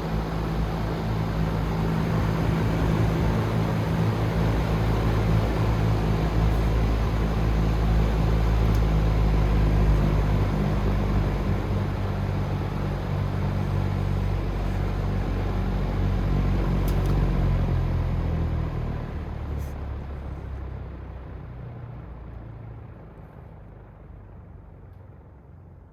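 Vintage Dominion box fan running: a steady rush of air from the blades over a low motor hum. About two-thirds of the way in the hum stops and the air noise fades away gradually as the blades coast down.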